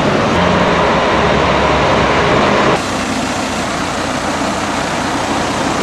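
Bus engines and road traffic: a loud, steady rumble with hiss, which cuts abruptly to a slightly quieter, similar noise about three seconds in.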